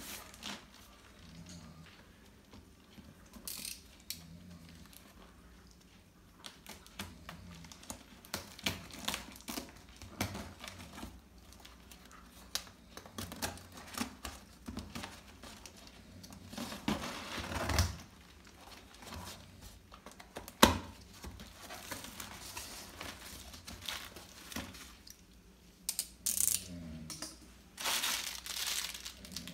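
Packing tape being peeled and ripped off a cardboard box, with the cardboard rustling and knocking under the hands and one sharp snap about two-thirds through. Near the end, plastic wrapping crinkles as the parts inside are handled.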